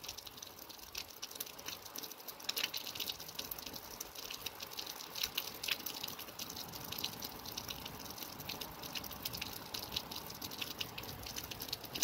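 Rain falling at night: a soft steady hiss with many separate drops ticking irregularly.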